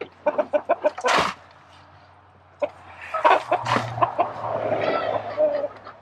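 Hens clucking in a run of short calls, with the scrape and rustle of a long-handled tool digging into old straw bedding, loudest in a sharp burst about a second in.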